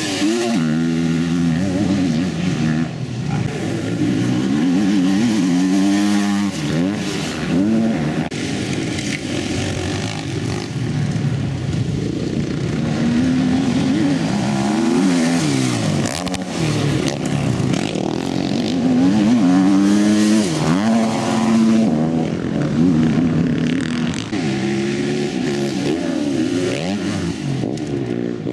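Motocross bike engines revving hard, their pitch climbing and dropping over and over as the throttle opens and shuts. At times more than one bike is heard at once.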